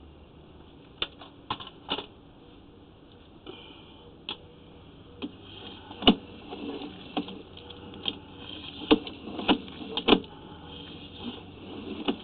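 Sewer inspection camera's push cable being retracted out of the line: irregular clicks and knocks with no steady rhythm, the loudest about six seconds in and again around nine to ten seconds.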